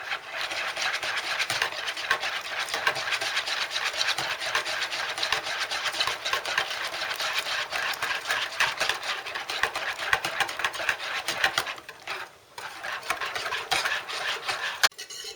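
A whisk beating rapidly in a bowl of egg and lemon mixture, a quick continuous run of light clicks, as hot broth is whisked in slowly so the egg does not curdle. It pauses briefly about twelve seconds in, then resumes and stops near the end.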